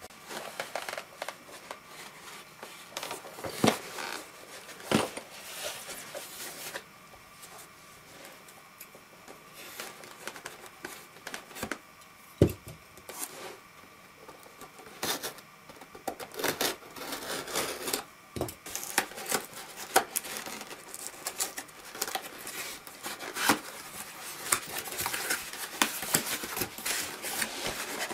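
A cardboard shipping box being handled and opened: scissors snipping and slitting the packing tape, and the cardboard flaps scraping and tearing open, with a few sharp knocks as the box is moved on the table.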